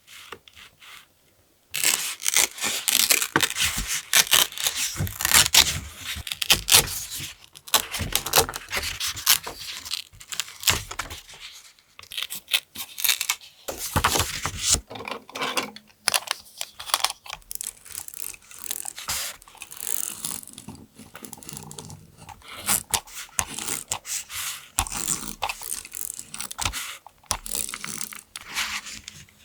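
Close-miked paper being torn and handled: irregular rasping tears and rustles of paper, starting about two seconds in after a short lull.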